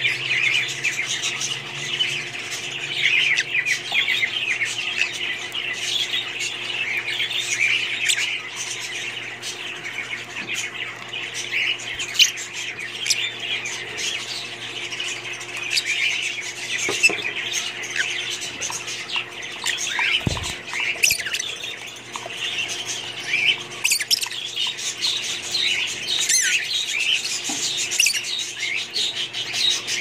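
A colony of Fischer's lovebirds chattering without pause, a dense mass of high chirps and squawks.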